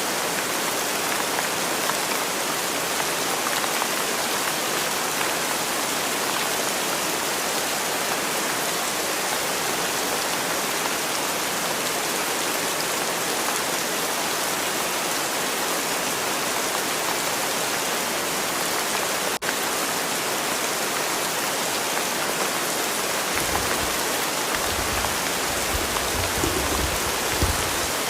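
Steady rain: an even, continuous hiss of falling rain, with a brief dropout about two-thirds of the way through. Some low rumbling comes in near the end.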